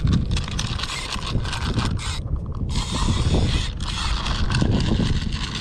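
Zebco push-button spincast reel being cranked to wind in a hooked fish, its gears giving a fast, dense clicking, with a brief pause a little past two seconds in.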